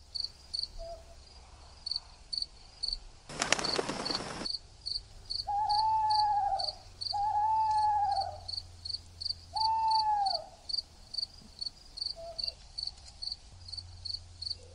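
Night-time ambience of a cricket chirping steadily, about two to three high chirps a second. A short rushing burst of noise comes about three and a half seconds in. Three long, slightly falling hoots follow from about five and a half seconds on and are the loudest sounds.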